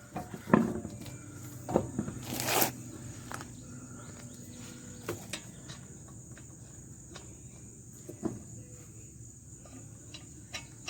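Insects trilling steadily in the background, with scattered clicks and knocks of work on the wheel and a short loud rasping burst about two and a half seconds in.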